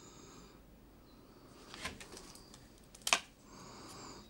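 Quiet handling of a small plastic gadget and its vent mount in the hands: light rubbing and a few soft clicks, with one sharp plastic click about three seconds in.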